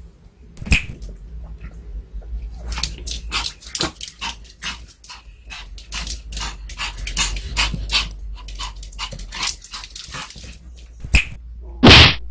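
Pomeranian whining and yipping in quick short bursts, begging impatiently for a duck-leg bone treat held above it, then one loud bark near the end.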